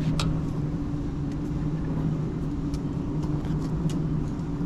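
Steady low motor hum, with a few light clicks and taps.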